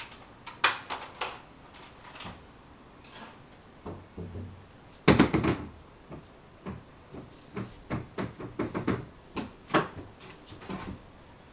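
Knocks and a scraping thud as a plastic laundry basket is moved and set down, the thud about five seconds in being the loudest, then a run of light knocks and rattles as a rolled-up woven mat is handled and stood in the basket.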